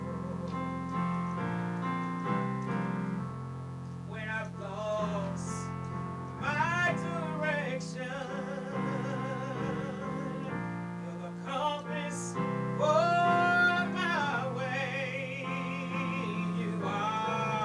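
A woman singing a slow gospel solo in long held notes with vibrato, over sustained keyboard chords. The voice comes in phrases, louder around the middle and again near the end.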